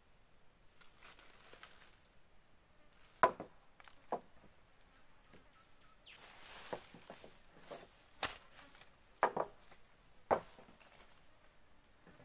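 Scattered sharp cracks and crunches of dry twigs and leaf litter, about six in all, with a stretch of rustling in the middle.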